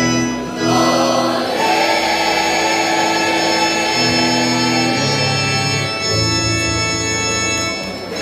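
Mixed choir singing slow, held chords, moving to a new chord every second or so.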